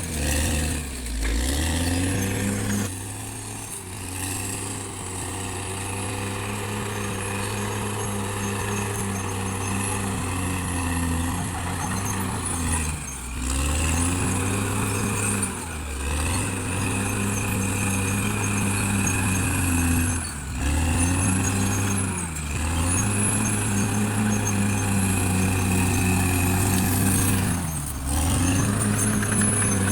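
Caterpillar D6R XL bulldozer's diesel engine running hard under load, its revs sagging and picking back up about seven times as the blade pushes and eases off, with a high whine that rises and falls.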